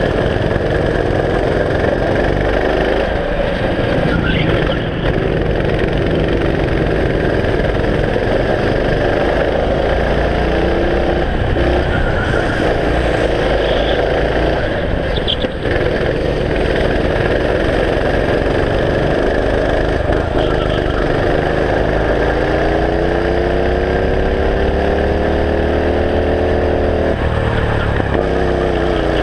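Racing kart engine running hard on track, its pitch rising and falling with the throttle. Near the end the pitch climbs steadily for several seconds, then drops sharply as the throttle comes off.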